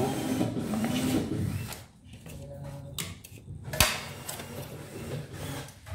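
Light knocks and clicks from handling a wooden wall-mounted cabinet during installation, with one sharp click about two-thirds of the way in. A man's voice talks briefly at the start.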